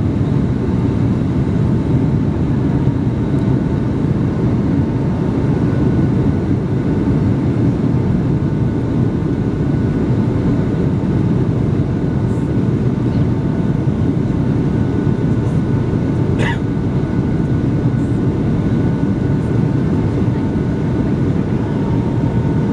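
Boeing 757-200 cabin noise on approach with landing gear and flaps extended: a steady, dense rumble of engines and airflow with faint steady tones above it, and one brief click about three-quarters of the way through.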